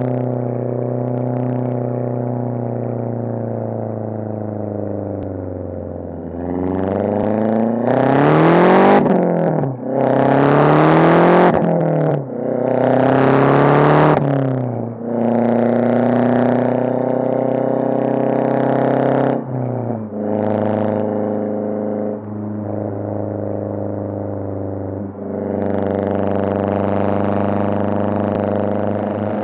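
Mazdaspeed 6's turbocharged four-cylinder running through a catless downpipe and a resonator-only single-exit exhaust. It cruises at first, then about six seconds in accelerates hard through three gears. Each pull rises in pitch, is loudest near the top, and cuts off sharply at the shift, before the engine settles back to steady cruising.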